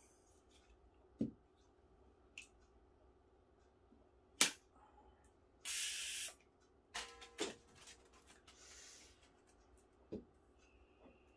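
Handling of a Coravin Model 3 wine preserver and a wine bottle: a few sharp clicks and knocks, then a short hiss of nitrogen gas about halfway through. After the hiss come a ringing clink and a knock near the end.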